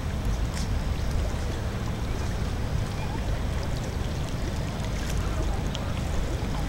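Steady low rumbling outdoor background noise with a few faint ticks.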